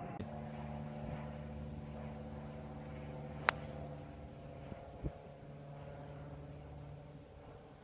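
A golf club striking the ball off the fairway turf, a single sharp click about three and a half seconds in, over a steady low hum.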